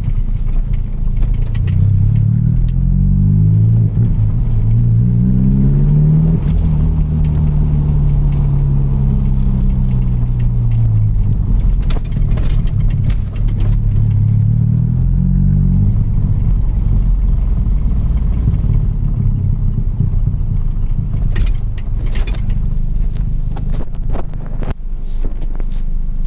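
Straight-piped 1.8-litre turbocharged four-cylinder engine of a Mk1 Audi TT 180, revving up and falling back several times over a steady low rumble. A few sharp clicks and knocks come near the end.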